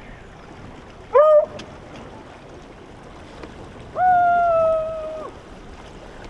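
A young man's wordless voice: a short rising yelp about a second in, then a long held 'aaah' call lasting over a second, starting about four seconds in and sagging slightly in pitch as it ends.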